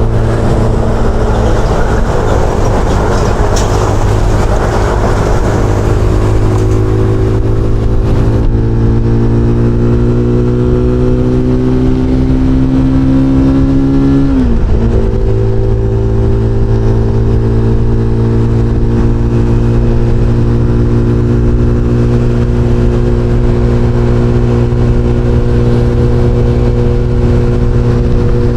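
SBM 250 S motorcycle engine and exhaust running at highway speed under load. The pitch climbs slowly, then drops sharply about halfway in, as at an upshift, and holds steady after. Wind rush is mixed in for the first eight seconds or so.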